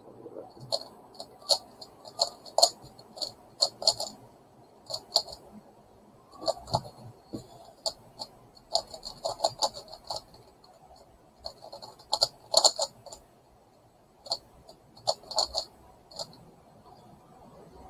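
Megaminx puzzle being turned fast by hand: its plastic faces clicking and clacking in quick runs of turns separated by short pauses.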